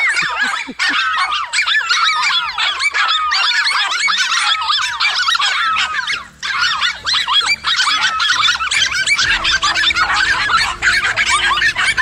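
Several dogs barking and yelping frantically over one another in a continuous, chaotic din. A low steady hum comes in about three-quarters of the way through.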